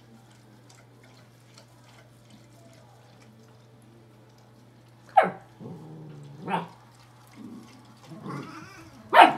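German Shepherd puppy barking at a cat: four sharp barks, the first about halfway through and the last the loudest, with a low grumble between them. A steady low hum runs under the first half.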